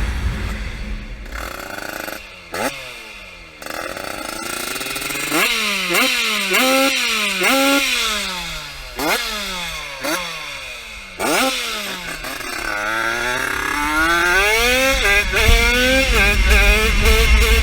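50cc motorbike engine under full throttle. Its pitch climbs and drops sharply again and again through the middle, as it shifts up through the gears, then climbs again to hold high revs near the end.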